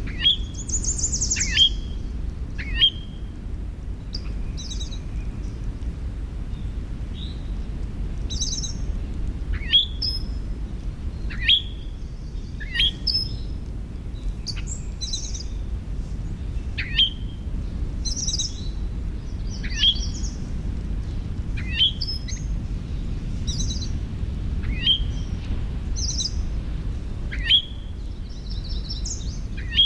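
Several birds singing. One bird repeats a short, clear note that slides downward every second or two, while others add higher chirps and quick trills between its notes, over a steady low background rumble.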